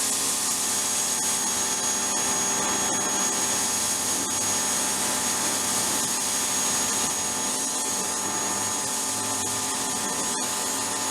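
Ryobi 1600 psi electric pressure washer running steadily under load, its motor and pump hum and a high whine beneath the hiss of spray through a foam lance.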